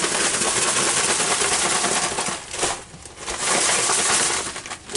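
Plastic bag of fish batter rustling and crinkling as it is shaken to coat a whole crappie, in two spells with a short break about halfway.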